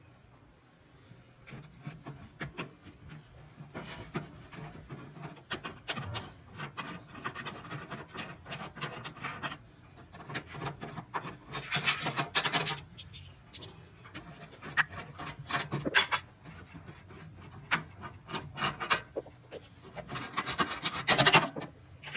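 Hand work: irregular scraping and rubbing, with scattered clicks and knocks. Louder rasping comes about twelve seconds in and again near the end.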